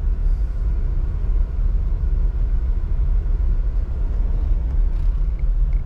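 Steady low rumble of a Honda car's engine and tyres, heard from inside the cabin as it drives slowly through a flooded street.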